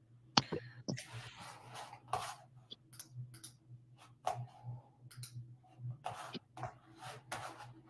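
Scattered handling noises, short clicks and rustles, over a low steady hum; a sharp click about half a second in is the loudest.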